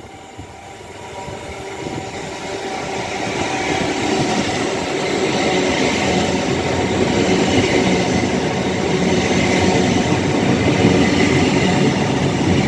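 A passenger train approaching and passing at speed close by: its rumble of wheels on rail and running gear builds over the first few seconds, then holds loud and steady as the train goes past.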